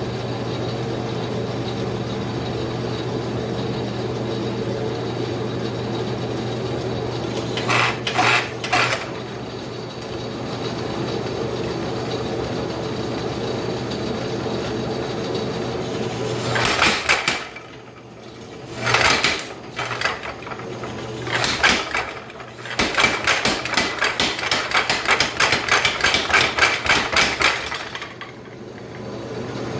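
Power hammer with its motor running in a steady hum, then the ram striking a blacksmith's flatter in a few short runs of blows. These are followed by a rapid, continuous run of several blows a second lasting about five seconds, before the hammer settles back to the motor hum.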